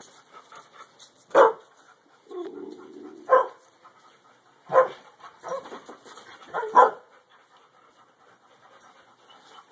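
Alaskan Malamutes barking during a play-fight between a puppy and an adult: about five short, loud barks spread over several seconds, with a longer, lower sound between the first two.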